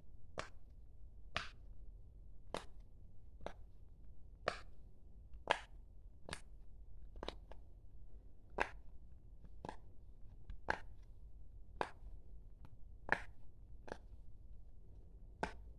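Rainbow silicone pop-it fidget toy having its bubbles pressed in one at a time, giving short pops about once a second, some fifteen in all.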